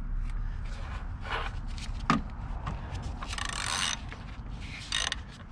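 Socket ratchet wrench worked in short strokes, its pawl clicking and metal scraping, as a bolt extractor backs out a stripped bolt. There is one short squeak about two seconds in.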